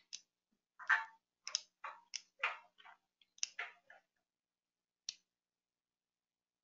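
A run of brief, irregular clicks over about four seconds, then a single click about five seconds in.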